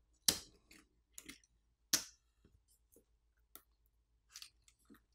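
Plastic frame assembly of an e-ink tablet being pulled and lifted off the display panel: a series of sharp plastic clicks and crackles, with the two loudest snaps just after the start and about two seconds in.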